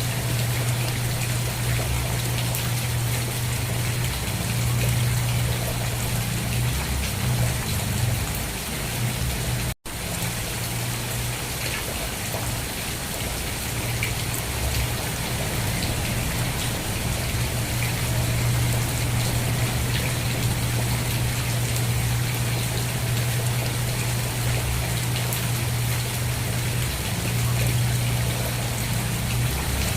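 Steady rain, an even hiss of falling drops with a constant low hum beneath it. The sound drops out for an instant about ten seconds in, then resumes unchanged.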